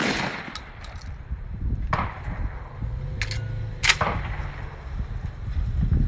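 Shotgun shots at a clay range: a loud shot with an echoing tail right at the start and another about four seconds in, with fainter, more distant shots between them.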